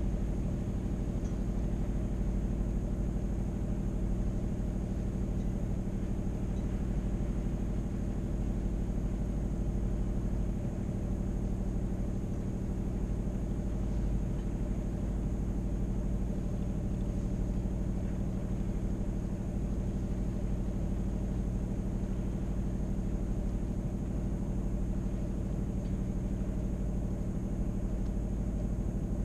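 A sailboat's auxiliary engine running at a steady speed, a constant hum with a low rumble beneath it.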